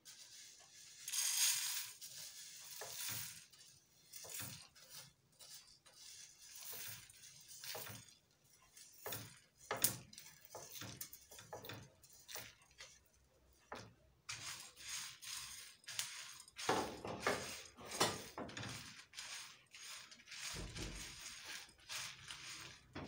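Whole coriander seeds scraped off a plate with a spoon and pattering into a small non-stick pan of dried red chillies, with scattered light clicks and scrapes of utensil on plate and pan; in the second half a spatula stirs the dry spices round the pan.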